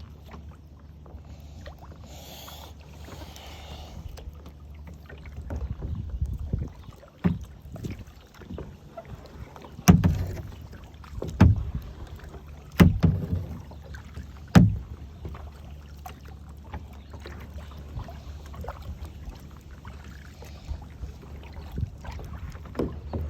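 Kayak paddling: water swishing and dripping from the paddle over a steady low rumble, with several sharp knocks between about 7 and 15 seconds in.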